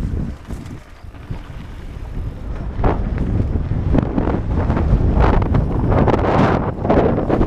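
Wind buffeting the microphone of a camera on a mountain bike riding dirt singletrack, under the rumble of the tyres and irregular clattering knocks from bumps in the trail. It eases for a second or so near the start, then grows busier with knocks from about three seconds in.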